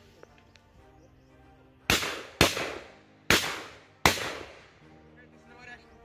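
Four shotgun shots fired in quick succession at birds in flight, spread over about two seconds, each a sharp crack with a short echoing tail.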